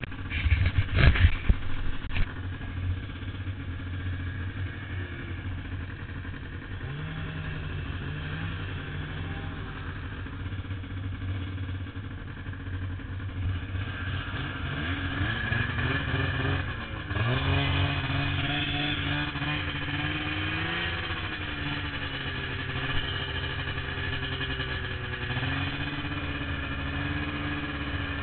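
A vehicle engine running, its pitch rising and falling as it speeds up and eases off, with a few sharp knocks in the first couple of seconds.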